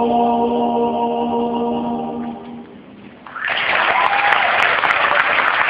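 Male vocal ensemble holding a sustained final chord that fades out about two and a half seconds in, followed after a short pause by audience applause breaking out.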